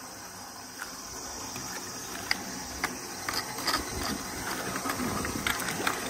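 Footsteps and dry grass crackling and rustling, with scattered irregular ticks, over a steady high insect drone.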